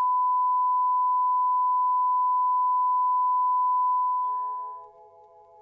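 Steady 1 kHz reference test tone, the line-up tone that accompanies colour bars. It fades out about four seconds in, as faint held musical notes come in.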